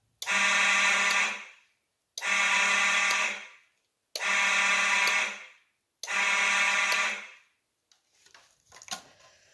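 Fire alarm horn sounding four buzzing blasts, each a little over a second long and about two seconds apart, then stopping.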